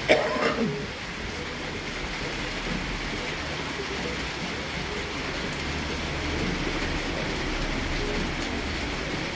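Steady rain falling during a thunderstorm, an even hiss, with a low rumble that grows a little louder about halfway through. A short vocal sound with falling pitch right at the start.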